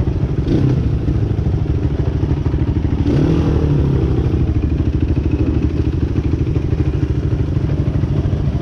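Off-road vehicle engine running steadily while riding, its pitch rising briefly about three seconds in.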